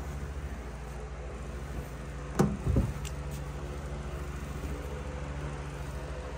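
Steady low machine hum while bedding is stuffed into a washing machine drum by hand, with a couple of knocks about two and a half seconds in as it bumps the machine.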